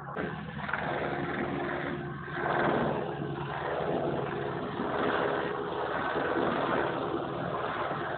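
Helicopter hovering overhead: a steady rotor and engine drone with a few gentle swells in loudness.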